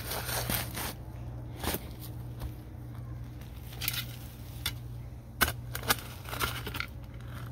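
Shovel digging into damp garden soil: a series of crunching, scraping strokes as the blade cuts in and the soil is lifted and dropped, the sharpest about five and a half seconds in, over a steady low hum.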